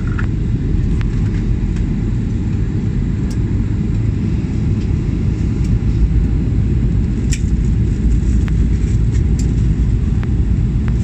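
Steady low rumble of airliner cabin noise heard at a window seat: jet engines and airflow during the descent. A few faint clicks sound near the middle.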